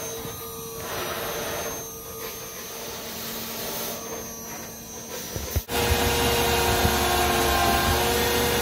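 A faint steady hiss, then about two thirds of the way in a sudden switch to a metal lathe running steadily, with the ends of two steel pieces rubbing together under pressure as they spin. This is a rotary friction weld in progress, hot enough that the joint glows red.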